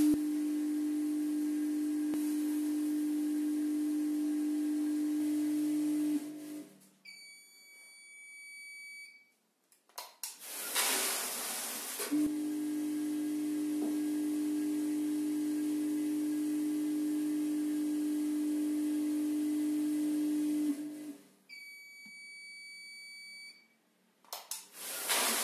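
Weighing-filling machine's feeder humming steadily while it doses material onto the scale, then stopping. About two seconds later the machine gives a long, steady beep, its signal that the set weight is reached. The weighed material then rushes out of the spout with a hissing pour. The cycle runs twice: hum, beep, pour.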